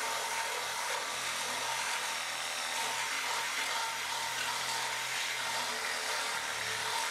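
Power saw running steadily, its blade cutting through the seized threaded nipple inside a cast-iron radiator's outlet, with a constant whine under the rasp of the cut.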